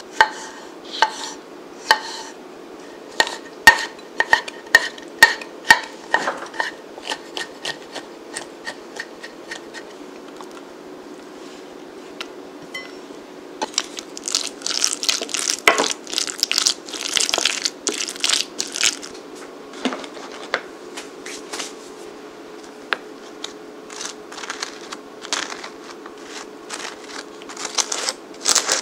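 A kitchen knife chopping black olives on a wooden cutting board, knocking once or twice a second. About halfway through, a spoon scrapes and mixes chopped egg and olives in a glass bowl for several seconds. Scattered lighter taps and scrapes follow.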